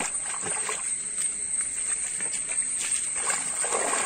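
Feet wading and splashing through shallow stream water, the splashes growing louder about three seconds in. A steady high-pitched buzz runs underneath.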